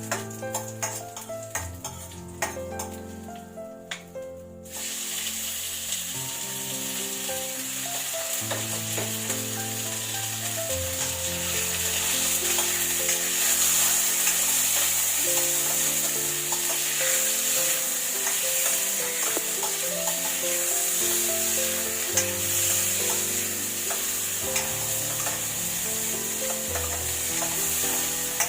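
Cooking oil in a frying pan with a few light utensil clicks, then about five seconds in a loud sizzle starts suddenly as food goes into the hot oil, and it keeps frying steadily. Background music plays throughout.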